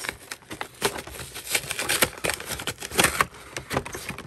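Pokémon Blastoise VMAX Battle Box, cardboard packaging being handled and opened: rapid, irregular rustling, scraping and small clicks.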